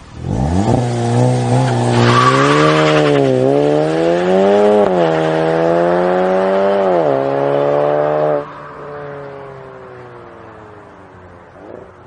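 Performance car engine running hard at high, wavering revs, with a short burst of hiss about two seconds in. About eight seconds in it drops off sharply, and the sound fades away with a slowly falling pitch.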